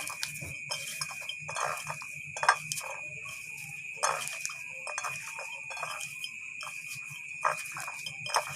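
Hands squeezing and kneading fresh lemon basil leaves wetted with cajuput oil, giving irregular crackling, rustling squishes as the leaves are crushed soft. A steady high-pitched tone runs underneath.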